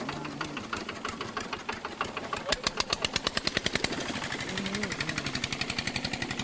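A boat's engine chugging with a fast, even beat of about eight knocks a second, getting much louder about two and a half seconds in.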